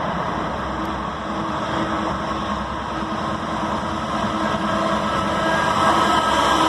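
Norfolk Southern freight train approaching: a steady diesel-locomotive and rail rumble that gradually grows louder, with faint steady tones joining about halfway through.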